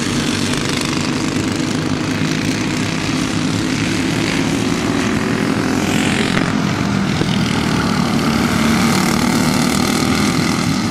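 Racing go-kart engines buzzing steadily as two karts lap the track together, swelling briefly about six seconds in.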